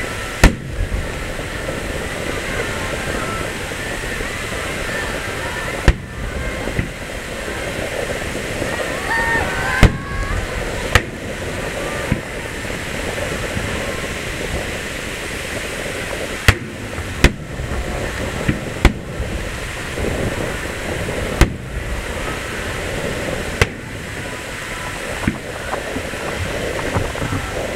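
Fireworks shells bursting: about eleven sharp booms at uneven intervals, over steady background noise of crowd and surf.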